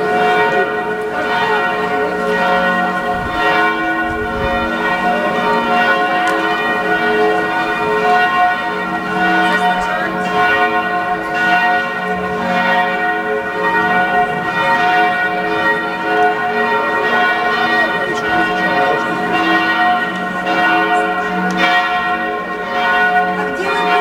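Church tower bell ringing continuously, struck again and again so that its tones overlap and hang together without dying away.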